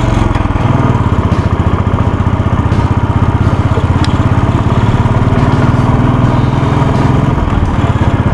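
Motorcycle engine running steadily while the bike rides along, a rapid, even beat of exhaust pulses heard from the rider's seat.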